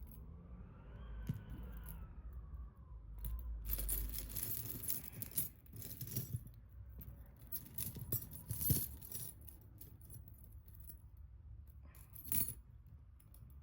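Metal costume jewelry (chains, charms and earrings) jingling and clinking as it is handled and sorted, in bursts through the middle and again briefly near the end.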